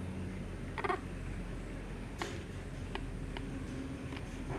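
Infant macaque giving a short, high squeak about a second in, followed by a few faint clicks as it eats from a fingertip.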